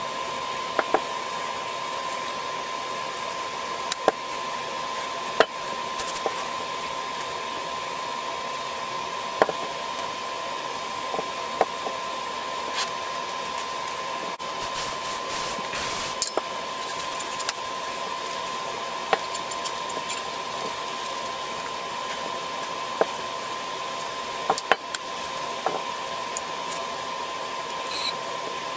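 Steady whirring hum with a constant high tone, over which come scattered clicks and knocks as a bicycle fork and handlebar are handled and wiped with a shop towel.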